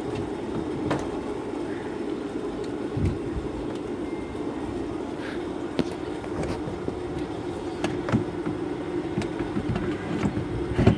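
Scattered clicks and taps as the water pump's parts and screws are handled during reassembly, with a louder knock near the end, over a steady hum.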